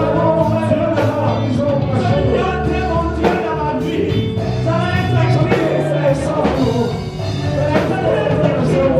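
Live worship music: a praise band playing with singing voices over a steady drum beat.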